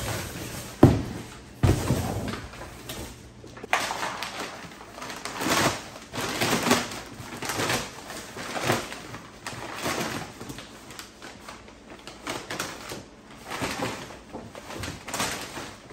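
Large cardboard shipping box being opened and unpacked: two sharp thumps about a second and two seconds in as the flaps are pulled, then a long run of irregular rustling, scraping and sliding as the cardboard is handled and a bumper cover is drawn out of it.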